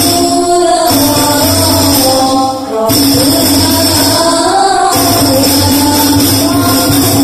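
Hadroh ensemble: a group of girls singing an Islamic devotional song over rebana frame drums beating a steady rhythm. The music dips briefly about two and a half seconds in, then carries on.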